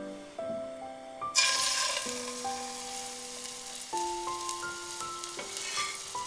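Floured chicken breast laid into hot oil, sizzling as it starts to fry, the sizzle starting suddenly about a second and a half in. A melody of soft notes plays underneath.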